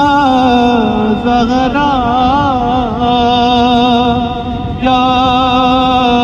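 A man singing a naat solo without accompaniment, in long held notes with wavering melodic ornaments and a brief break about five seconds in.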